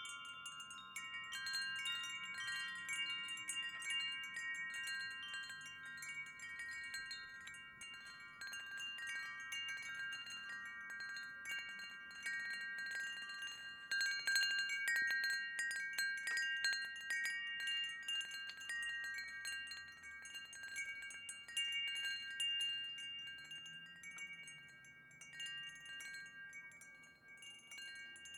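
Wind chime ringing, its notes overlapping and sustaining into one another, with a denser flurry of strikes about halfway through.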